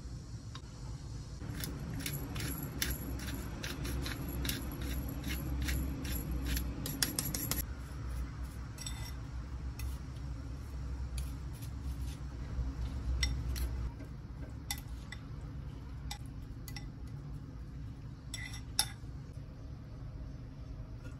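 Wooden chopsticks and a wooden spoon clicking against a glass mixing bowl while tossing shredded carrots in dressing: a quick, busy run of clicks for the first several seconds, then scattered single clicks. A low steady hum runs underneath.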